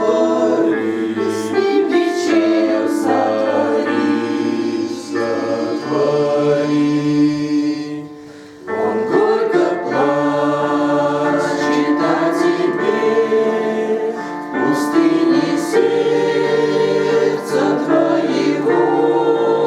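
A church choir singing a slow hymn in several voice parts, with held chords. There is a short break between phrases about eight seconds in.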